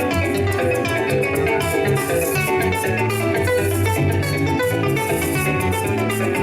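Harp, cuatro and maracas playing rhythmic Venezuelan llanero music: quick plucked string runs over a steady shaken maraca beat.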